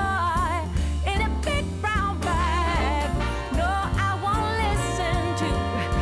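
Background music: an upbeat swing-style song with a wavering vibrato melody over a steady bass.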